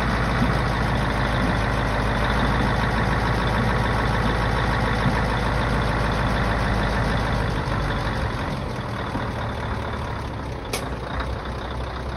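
Scania R143 V8 diesel truck engine running steadily while the hydraulic tipper body lifts. About eight seconds in, the deep engine note falls away and the sound gets a little quieter, and a single short sharp click comes near the end.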